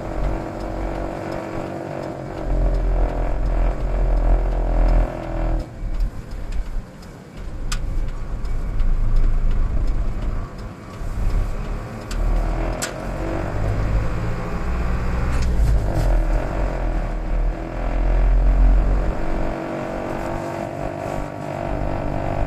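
A low droning, rumbling noise, 'gooooo' and 'burororo', in the cab of a 2003 Mitsubishi Fuso Canter with the 4M51 diesel; the owner hears it from around the dashboard and cannot identify it. It swells and fades, thins out briefly about six seconds in, with a couple of sharp ticks.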